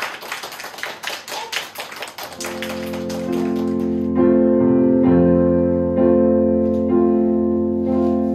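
A run of scattered sharp clicks and taps for about two seconds, then a keyboard comes in playing held chords, a new chord about every second.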